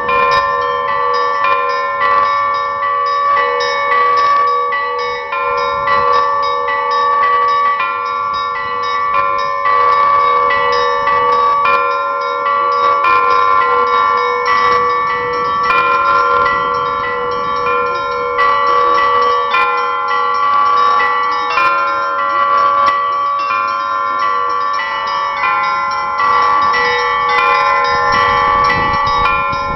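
Russian church bells rung in a continuous peal: several bells of different pitches struck in quick succession, their tones ringing on and overlapping without a pause.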